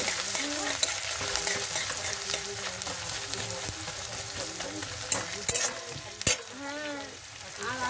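Chopped onions sizzling steadily as they fry in hot mustard oil in a steel kadai, stirred with a steel spatula. A few sharp clinks of the spatula against the pan come a little after halfway.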